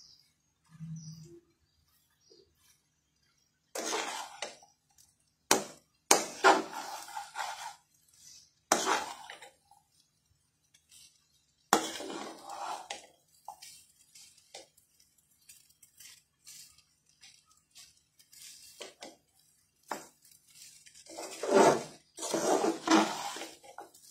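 A spatula scraping and clinking against a metal pan as fried rice is stirred and tossed. It comes in irregular bursts of a second or two with quiet gaps between, and the busiest, loudest stirring is near the end.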